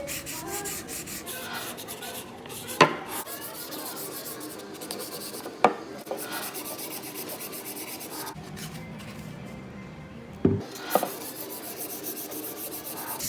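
Sandpaper being rubbed back and forth by hand over the face of a wooden cutting board, in repeated strokes. A few sharp wooden knocks stand out, about three seconds in, near six seconds, and twice near the end.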